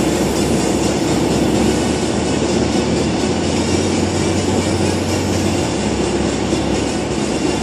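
Steady road noise inside a car cabin at highway speed: tyre rumble and wind, with a low hum that comes in about two seconds in and fades near six seconds.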